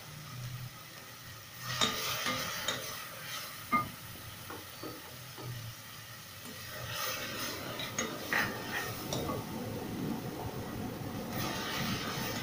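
Metal spoon stirring and scraping in a pot of frying onion, ginger-garlic and tomato paste masala, with a few sharp scrapes against the pot. The sizzle grows louder over the second half.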